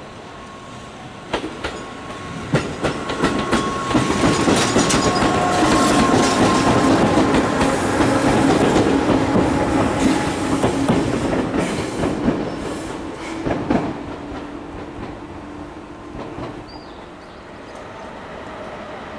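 Electric train passing on the tracks, wheels clacking over rail joints, with a steady whine. It builds over the first few seconds, is loudest in the middle and fades out after about 14 seconds.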